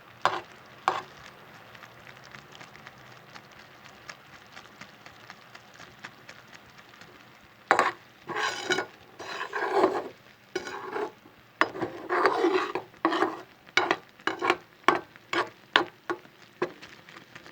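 Thick sugar syrup with cocoa simmering in a pan with a faint crackle. From about eight seconds in it is stirred, with many short scraping strokes against the pan.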